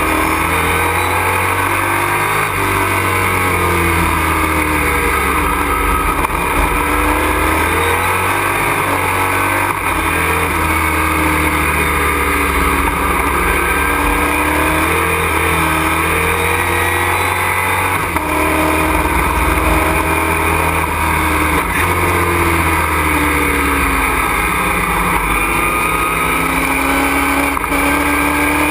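Race truck engine heard from inside the cockpit at racing speed, its revs rising and falling again and again as it accelerates and slows, over steady road and wind noise.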